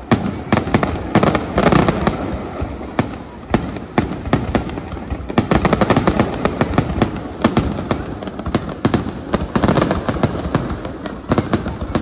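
Fireworks display: aerial shells launching and bursting in a rapid, uneven series of sharp bangs and crackles, several a second.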